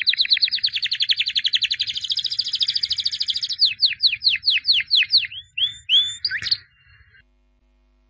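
Domestic canary singing: a fast trill of rapidly repeated notes for about three and a half seconds, then a slower run of falling notes, about three a second, that breaks off near the end.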